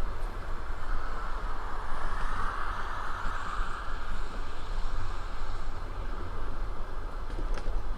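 Passenger train carriage running along the track: a steady rumble of wheels on rails that swells briefly a few seconds in, with a single click near the end.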